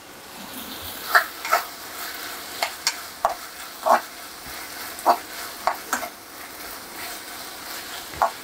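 Onion-tomato masala sizzling gently in an aluminium kadai while a steel spoon stirs it, scraping and knocking against the pan about ten times at uneven intervals.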